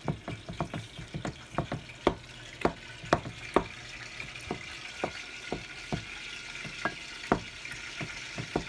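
Wooden pestle pounding boiled eggplant in a bowl: a run of irregular soft knocks, about two a second at first and sparser later. A steady hiss comes up underneath a few seconds in.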